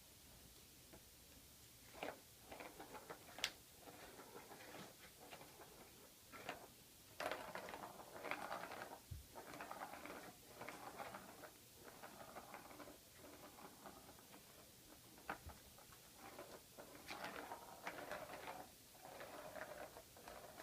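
Plastic balls rolling and rattling around the track of a cat's ball-track toy as the cat bats at them, in uneven runs with a few sharp clicks.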